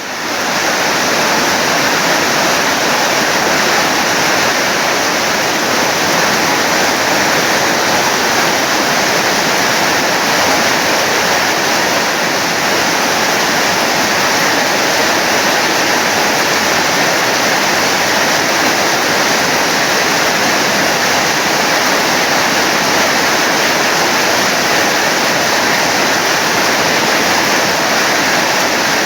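Heavy storm rain pouring down, a dense, steady rushing hiss that swells in at the very start and then holds unchanged.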